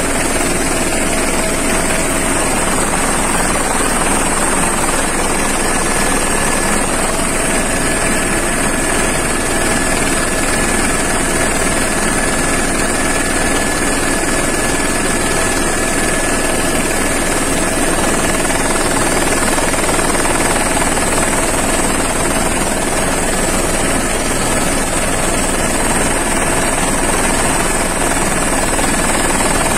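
Helicopter in flight, heard from aboard: a steady, loud rotor and engine noise with a constant high whine, unchanging throughout.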